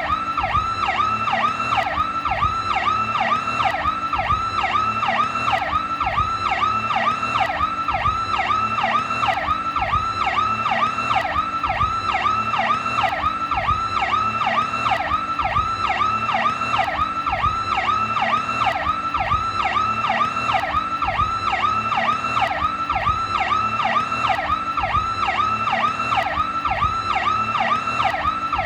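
Powercall police siren sounding continuously: a fast, steady up-and-down sweep in pitch, about two sweeps a second.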